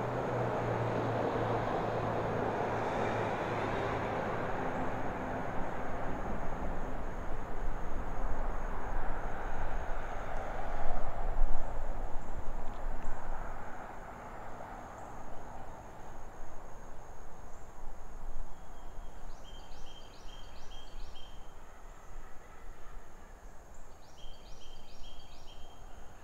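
Low rumble of a passing vehicle, swelling over the first few seconds and fading away about halfway through. Near the end a bird gives two short bursts of rapid, high stuttering notes.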